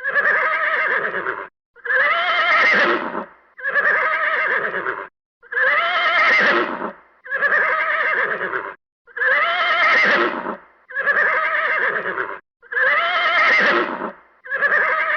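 Horse neighing, a series of about nine similar calls, each about a second and a half long with short gaps between them.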